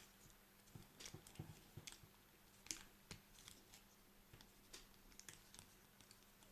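Faint, irregular clicks and ticks of a plastic Transformers Beast Wars Ram Horn action figure's parts and joints being moved by hand during transformation.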